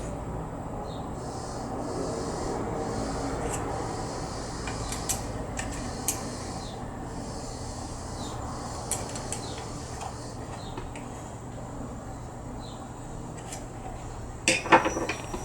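Metal stops and clamps of an Xhorse Dolphin XP-007 key-cutting machine being handled: scattered light clicks and rubbing over a faint steady hum, with a louder clatter of metal near the end.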